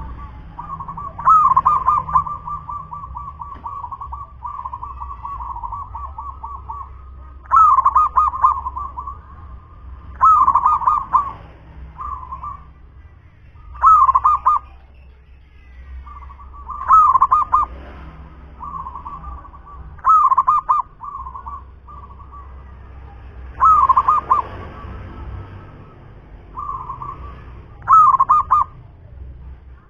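Local-strain zebra dove (perkutut) singing: its rolling coo phrase repeats about every three seconds, each starting with a loud burst and trailing into softer rapid trills.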